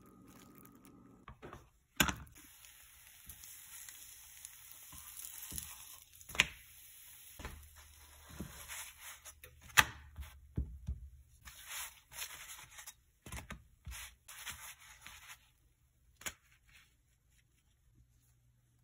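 Flatbread heating in a nonstick frying pan with a light hiss, pressed and scraped with a silicone spatula that knocks sharply against the pan now and then. The hiss stops about three-quarters of the way through.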